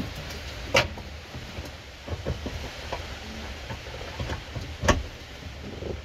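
Rear seat belt reel being lifted and worked loose behind plastic interior trim: scattered knocks, clicks and rubbing of plastic, with two sharper knocks, one just under a second in and one about five seconds in.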